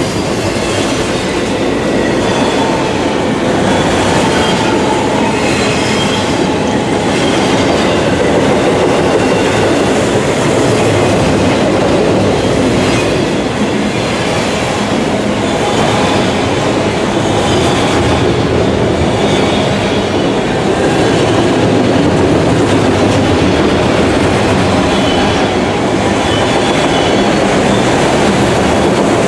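Enclosed autorack freight cars rolling past close by: a loud, steady rumble and clatter of steel wheels on rail.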